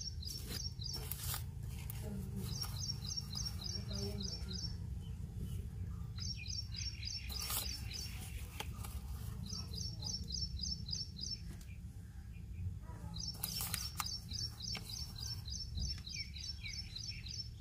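A bird chirping in repeated quick trills, each run of high notes lasting about two seconds with short pauses between. A steady low hum runs underneath, with a few faint clicks.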